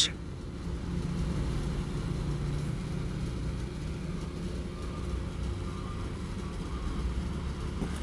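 A steady low background rumble with no distinct events.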